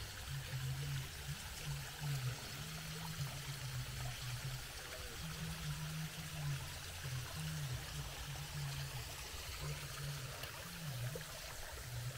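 Running water from a small garden stream, a steady trickling rush, with a low hum that breaks on and off underneath.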